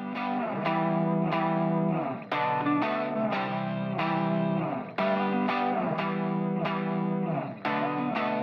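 Background music led by a plucked guitar, playing a repeating phrase of notes that starts over about every two and a half seconds.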